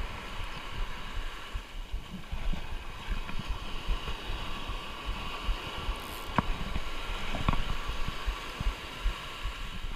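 Wind buffeting the microphone over a steady wash of surf, with a couple of faint clicks about six and a half and seven and a half seconds in.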